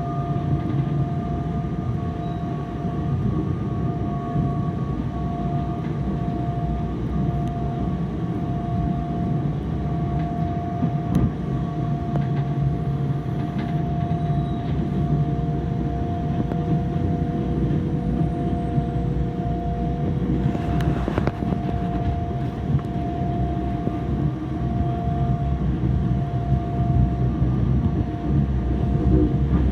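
Fukui Railway tram running slowly on its line, heard from on board: a steady low running rumble with a constant whine, plus a brief hiss about two-thirds of the way through.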